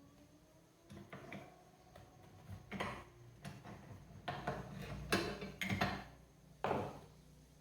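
Metal tools and parts clinking and knocking as they are handled: a string of irregular sharp clanks, some with a short metallic ring, most of them in the second half.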